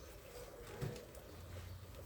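Kitchen knife slicing salad leaves on a cutting board: one soft chop about a second in, otherwise faint.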